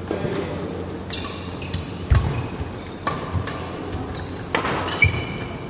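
Badminton doubles rally on an indoor court: four sharp racket strikes on the shuttlecock about a second apart, shoes squeaking briefly on the court mat, and two heavy footfalls.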